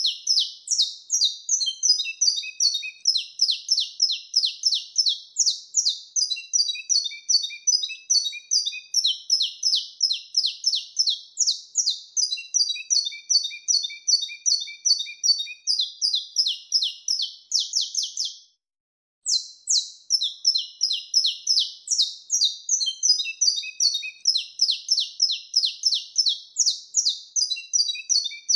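Saffron finch (canário-da-terra) singing its wild-type 'mateiro' song: a long unbroken run of sharp, high notes at about four a second, with lower trilled notes woven in. The song stops briefly about two-thirds of the way in and then starts again.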